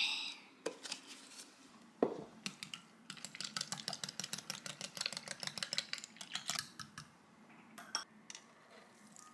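Small spring whisk beating eggs in a glass mug, its wire clicking against the glass several times a second for about four seconds. A sharp knock comes about two seconds in.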